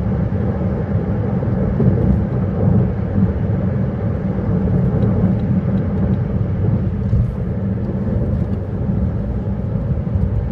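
Steady, low road and engine noise of a vehicle driving along a highway.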